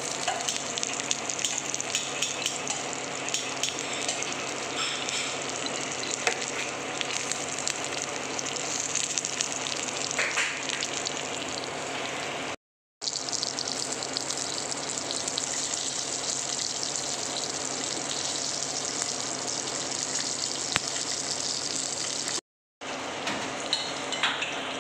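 Semolina-coated pomfret shallow-frying in hot oil in a pan: a steady sizzle with scattered crackles and pops. It cuts out briefly twice.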